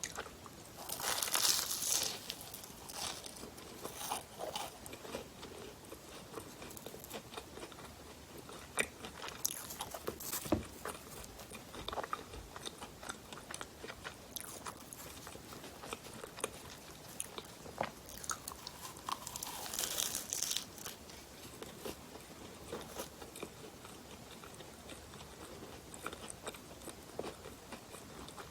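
Close-miked eating of crusty bakery bread: two crackling bites, one about a second in and another about twenty seconds in, with wet chewing and small mouth clicks between them.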